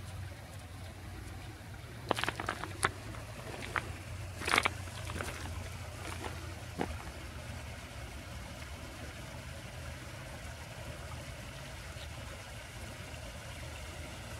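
A steady low hum, with a handful of short sharp clicks and scuffs between about two and seven seconds in.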